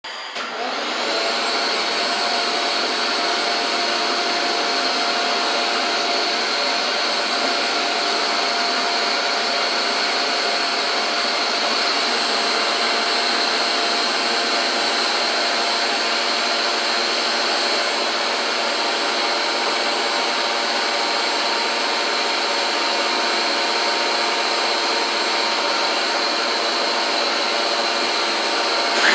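Shop vacuum running steadily with an even motor whine, unchanged throughout.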